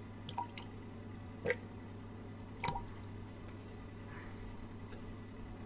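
Water dripping into the toilet: three separate plips about a second apart over a low steady hum.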